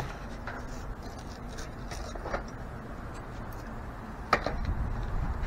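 Light scattered clicks and knocks of a plastic walkie-talkie charging base being handled, with a sharper knock about four seconds in, over a low steady rumble.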